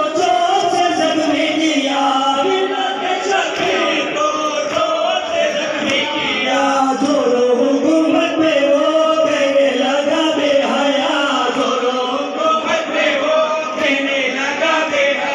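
A group of men chanting a noha, a Shia lament, in unison into microphones. The voices are amplified, with long, wavering sung notes.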